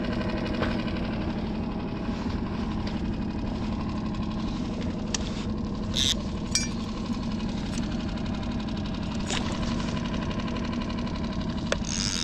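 Small outboard motor on a one-person skiff running steadily at slow trolling speed. A few short clicks from the fishing rod and reel being handled come about halfway through and near the end.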